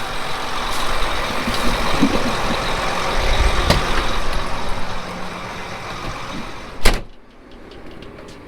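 Farm machinery running close by, a steady noisy rumble, then a cab door slams shut about seven seconds in and the machinery noise drops to a muffled hum heard from inside the cab.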